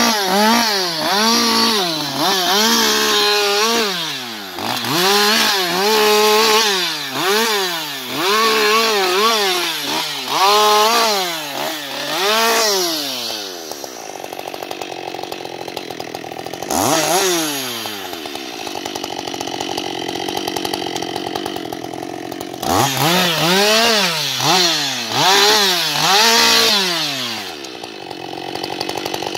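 Husqvarna 560 XP two-stroke chainsaw revving up and down in short bursts, about one a second, as it cuts off branches. About halfway through it drops to idle and revs once, then goes back to short bursts before settling to idle near the end.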